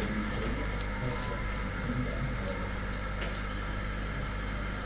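Classroom room tone: a steady low hum and hiss with a few faint ticks.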